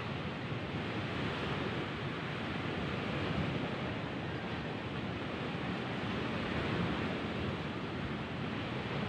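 Steady rushing noise of wind and surf, even throughout with no distinct events.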